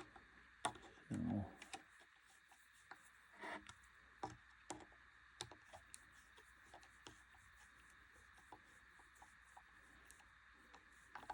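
Near silence with faint scattered light clicks and rubbing: hands handling the serger's parts.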